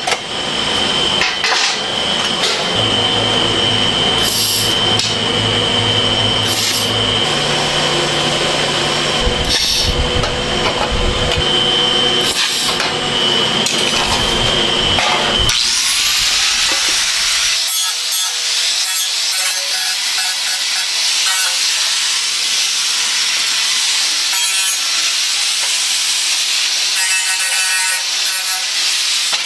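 Workshop power tool running with a steady high whine over a low hum, changing suddenly about halfway through to a harsh, high hiss.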